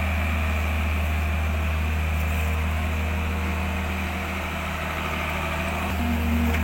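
An engine running steadily at idle, with a strong low hum.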